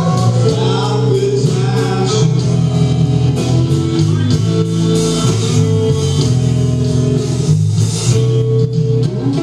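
Live band playing: electric guitar, bass and drum kit with a steady beat, and a voice singing over them.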